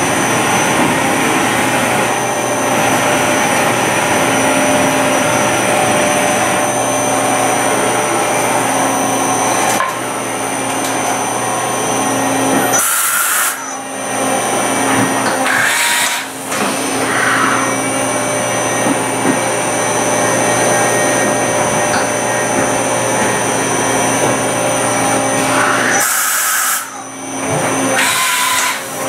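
Doosan MX2500 LST multi-axis CNC lathe running through its cycle: a steady mechanical drone with high steady whines from its motors and axes. Four short, sharp high hissing bursts come about 13, 16, 26 and 28 seconds in.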